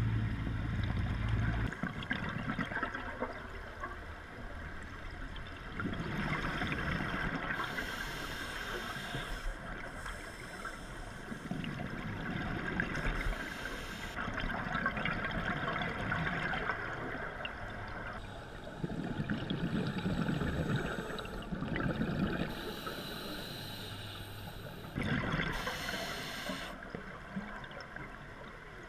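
Scuba regulator breathing underwater, about four slow breaths: each a hissing inhalation followed by a bubbling, gurgling exhalation, a few seconds apart.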